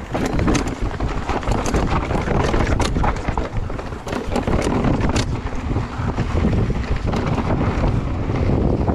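Wind rushing over the camera microphone during a mountain bike descent, over tyres rolling on rocky dirt singletrack. The bike rattles in scattered short clicks and knocks over the rough ground.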